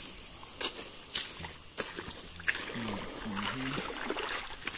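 Steady high-pitched chorus of crickets in the night forest, with scattered light clicks and rustles of footsteps and brushing vegetation on a muddy path. A short low murmur comes about three seconds in.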